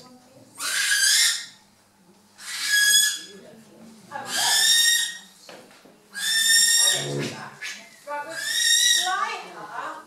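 Tame barn owl screeching repeatedly: five long high-pitched calls, each about a second, about every two seconds.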